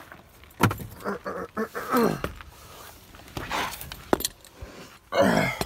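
Keys jangling, with clicks and knocks from a car's door and interior as someone climbs into the driver's seat. A short, loud pitched sound comes near the end.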